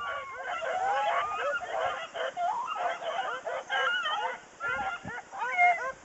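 A pack of hunting hounds baying together, many long, bending calls overlapping one another.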